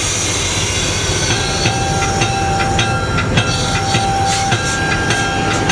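Diesel locomotive under way, heard from inside its cab. About a second in, a bell starts ringing, struck about three times a second with a steady ring between strikes.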